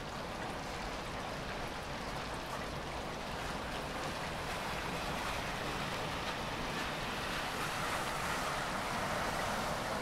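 Light rain falling: a steady hiss of rainfall with faint scattered drop ticks, growing a little louder near the end.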